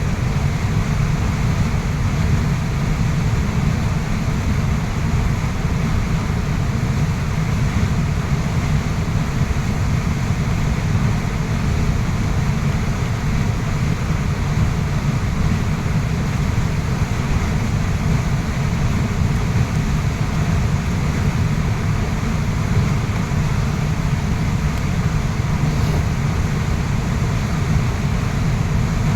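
Waterfall rushing: a steady, deep wash of falling water that does not change.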